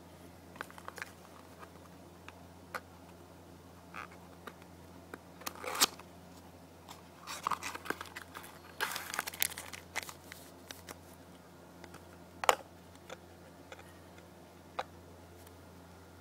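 Hands handling a toy car's packaging during unboxing: scattered crinkling, rustling and sharp clicks, busiest in the middle, with one loud click about twelve seconds in.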